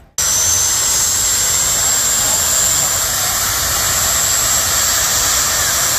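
Jet dragster's turbine engine running steadily: a loud, even roar with a high, steady whine through it. It begins abruptly.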